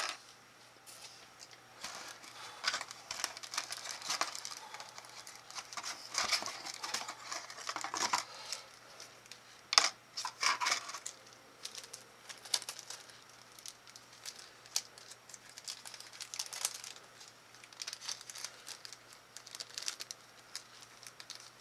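Plastic packaging crinkling and rustling as it is handled, with scattered small clicks and taps.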